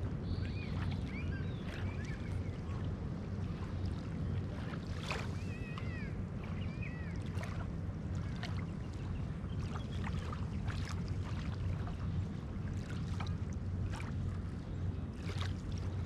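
Small ripples lapping and splashing at the edge of a calm sea on a sandy shore, over a steady low rumble, with a few short high chirps about a second in and again around the middle.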